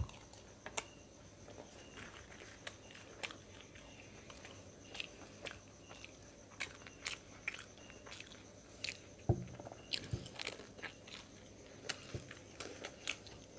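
Fuchka (pani puri) being eaten close to the microphone: faint crisp crunches and chewing clicks at an irregular pace, with a soft thump about nine seconds in.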